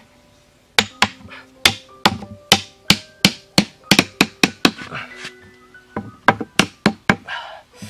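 Sharp wooden knocks of a tool tapping sharpened wooden stakes into place, about three a second, with a pause of more than a second partway through. Background music plays underneath.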